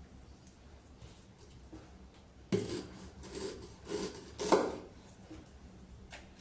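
Kitchenware being handled: after a quiet start, a run of four or five clattering knocks and scrapes about two and a half seconds in, the last one the loudest, then a single short click near the end.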